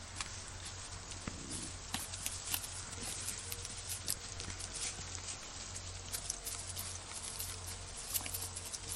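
Great Dane puppies' paws pattering and scuffing on dry grass and dirt, with many small crackles and taps scattered throughout, over a low steady hum.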